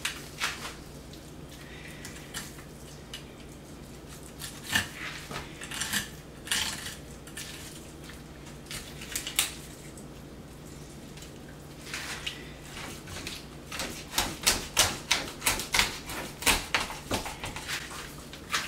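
Knife clicking and scraping as it cuts along a whole snapper's backbone and rib bones on a wooden cutting board. Scattered clicks at first, then a quick run of sharp clicks over the last few seconds.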